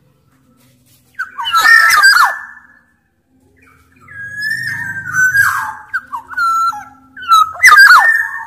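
Black-naped oriole (Sumbawa kepodang) singing: loud whistled phrases that glide up and down, in three bursts with short silences between.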